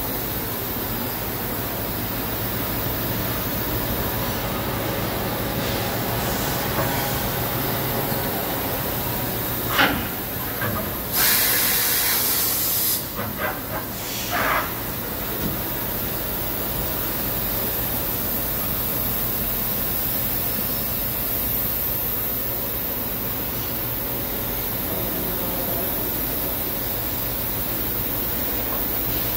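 Chiron FZ 15K S five-axis machining center running with a steady hum. About ten seconds in there is a knock, then a burst of compressed-air hiss lasting about two seconds and a few clunks, the sounds of a tool change.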